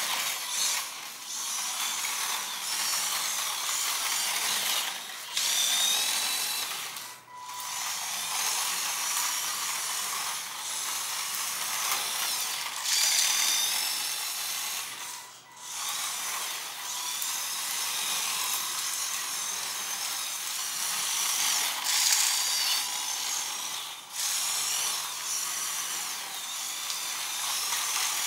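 A 3D-printed RC tractor (OpenRC Tractor MK3 TEA20) driving on a concrete floor: its small electric motor and printed gear drivetrain give a whirring, rattling whine that rises and falls in pitch with the throttle. It stops briefly about seven seconds in and again around fifteen seconds.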